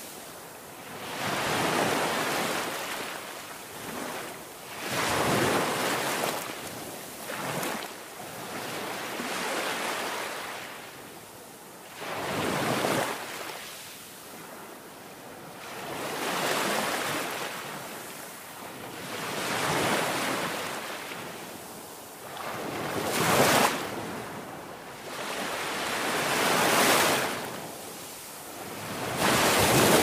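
Sea surf breaking and washing over rocks, a rushing noise that swells and falls back every three to four seconds. Two crashes in the second half are sharper and louder than the rest.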